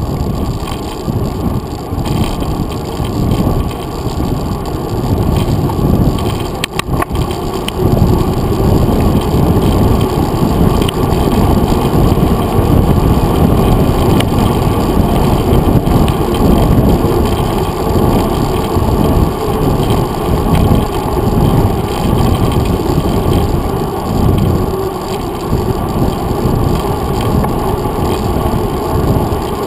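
Wind buffeting and road rumble picked up by a handlebar-mounted GoPro Hero 2 on a mountain bike rolling along a paved trail: a loud, muffled, fluctuating rush. There is a brief click about seven seconds in.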